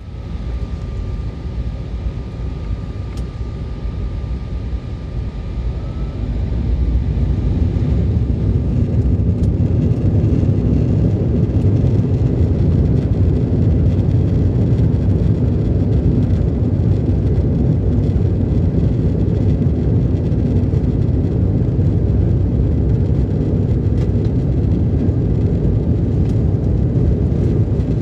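Jet airliner's engines and runway roll heard from inside the cabin during the takeoff run: a steady low rumble with a faint whine at first, growing louder about six to eight seconds in as thrust builds, then holding loud and steady.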